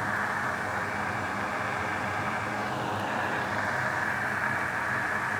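Steady, even fan-like whooshing noise with a faint low hum, unchanging throughout.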